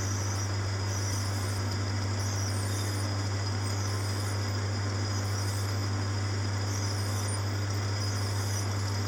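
Small metalworking lathe running steadily while drilling the brass piston for the piston rod: a strong, even low hum with a steady hiss of cutting noise over it.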